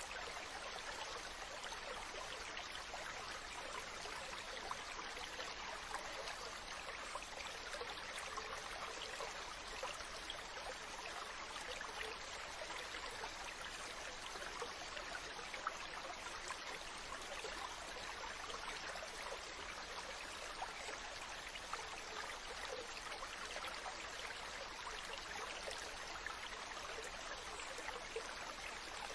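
Steady wash of ocean water with a fine fizzing crackle, holding an even level without distinct wave surges.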